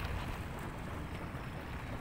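Steady seafront ambience: a continuous wash of wind and bay water, with a low rumble underneath.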